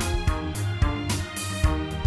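Background music with a steady beat: electronic-sounding music with a bass line and regular drum hits.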